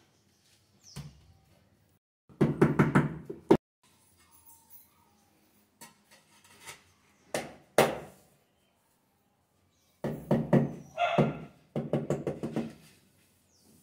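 Rubber mallet tapping a ceramic wall tile to bed it into the tile adhesive: a quick run of taps about two and a half seconds in, two single knocks near the middle, then two more runs of taps from about ten seconds.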